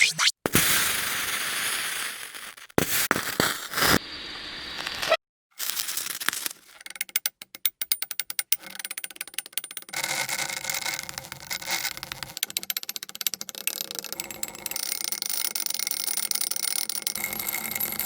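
Short extreme-temperature reaction recordings cut one after another: a loud hissing sizzle for the first few seconds, then fast crackling clicks, then a steady buzzing, rattling chatter through the second half.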